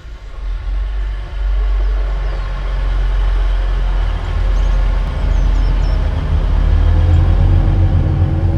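Multiple-unit passenger train passing through a station, a loud steady low rumble that rises in the first second and grows a little louder near the end.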